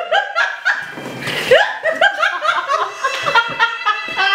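People laughing in short, rapidly repeated bursts, with a brief breathy rush about a second in.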